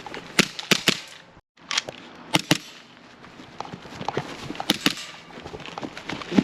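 Gas blowback airsoft pistol firing sharp cracks, mostly in quick double shots, with a few softer clicks between them.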